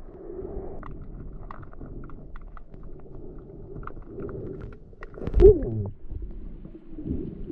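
Muffled underwater sound in a clear, rocky river: a low steady hum with faint scattered clicks, then about five seconds in a loud watery burst with a falling pitch as the camera breaks the surface.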